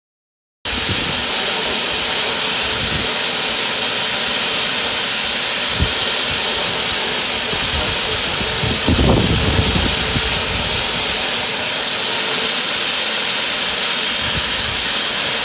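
Steam locomotive No. 2999 'Lady of Legend', a GWR Saint-class 4-6-0, hissing loudly and steadily as it lets off steam, with a brief low rumble about nine seconds in.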